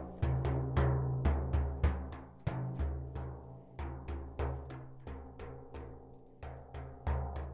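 A drum beaten in a steady, even rhythm, each stroke ringing with a deep booming tone; it eases off through the middle and comes back stronger near the end.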